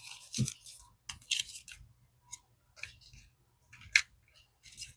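Irregular scratchy strokes of a marker on a paper game sheet, with light paper-handling knocks in between.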